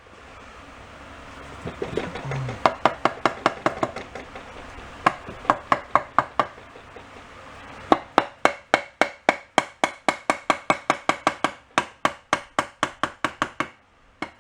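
Ratcheting hand tool running screws into the Honda Cub 50 engine cases: spells of sharp metallic clicks, about four or five a second, the longest in the second half. A steady fan hum runs underneath.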